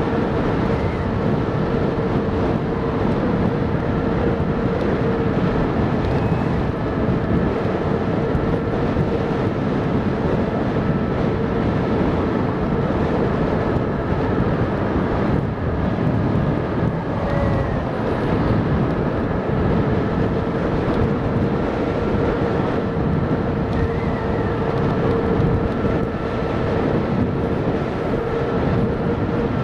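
A HappyRun F18 electric bike being ridden at speed: a steady rush of wind and road noise with a constant whine.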